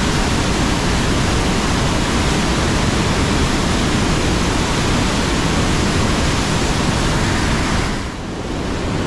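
Bridal Veil Falls crashing onto the boulders at its foot: a loud, steady rush of whitewater that dips briefly near the end.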